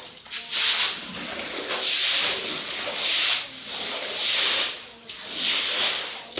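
Water being swept across a wet floor in regular swishing strokes, five of them, about one every second and a bit.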